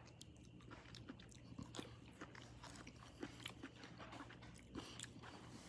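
Faint chewing of firm, fresh jackfruit flesh, with scattered soft mouth clicks.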